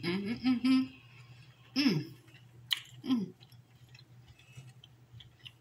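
A person chewing lobster meat, with small wet mouth clicks. A few short hums come in the first three seconds, and only the quiet chewing clicks after that.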